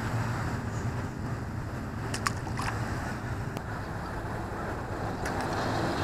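Steady low outdoor rumble and hiss with a faint hum, and a few faint clicks about two to three seconds in and again near the end.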